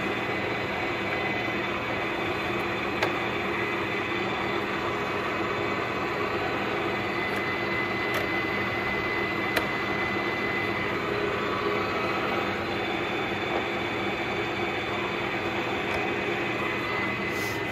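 A 1987 Clausing Colchester Mastiff 1400 gear-head engine lathe running, with a steady mechanical hum and gear whine and a few light clicks.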